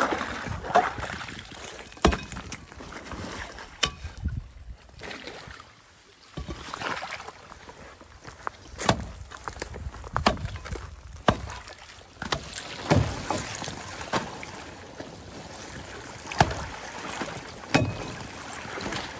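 Long-handled tool chopping and scraping into thin pond ice and slush, with sharp cracks and splashing of water and broken ice: an ice-dive entry hole being broken out and cleared. The strikes come irregularly, one every second or two.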